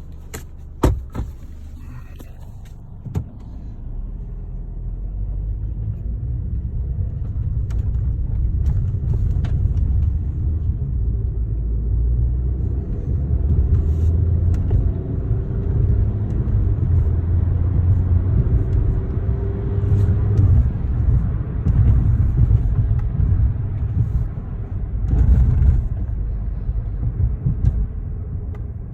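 2013 Chevrolet Sonic driving, with the engine and road rumble building as the car picks up speed. The engine note climbs over several seconds and then breaks off about two-thirds of the way through. A few sharp clicks come in the first three seconds.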